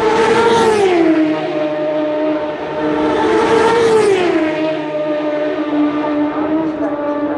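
Classic superbike racing motorcycles passing flat out, two in quick succession, about a second in and about four seconds in, each engine note dropping in pitch as the bike goes by, then the engine sound trailing away at a steady pitch.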